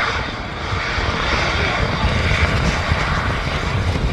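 Airbus A350-941's Rolls-Royce Trent XWB jet engines, a steady rushing noise, with gusty wind buffeting the microphone as an uneven low rumble.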